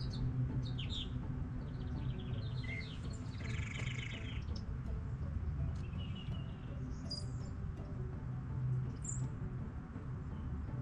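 Songbirds chirping and calling in short, scattered notes, with a fast trill about three and a half seconds in, over a steady low outdoor rumble.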